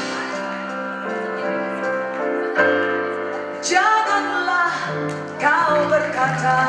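Live pop band holding sustained chords, with a woman's voice singing in over them from about halfway through.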